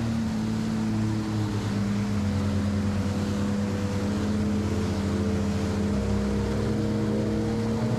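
Jet ski engine running at speed with a steady drone, under the rush of water spray and wind.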